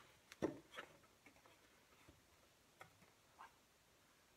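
Faint, scattered light clicks and taps of wood as the taped, mitered pine pieces of a hexagon frame are pressed together at the corners, the firmest one about half a second in.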